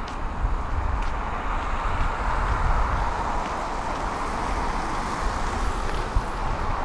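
Road traffic noise: a steady hiss from passing cars that swells a little midway, over an uneven low rumble.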